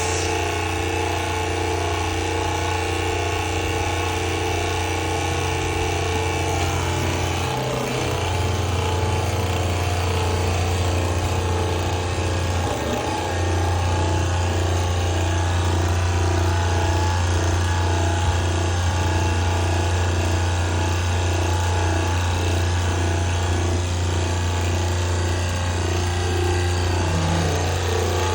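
Hydraulic power unit running steadily while a steel foundation pier is driven hydraulically, a loud, even machine hum. The hum briefly dips twice, about eight and thirteen seconds in.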